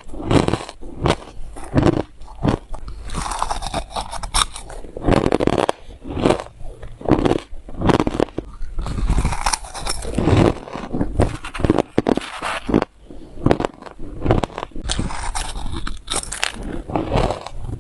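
Close-miked bites and chewing of crunchy crushed ice: repeated sharp crunches as the ice cracks between the teeth, with denser stretches of crackling chewing between bites.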